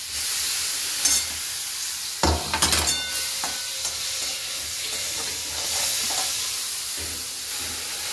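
Chopped onions sizzling in hot oil in a metal kadai while a metal spatula stirs them, scraping and knocking against the pan, with a burst of clatter about two to three seconds in.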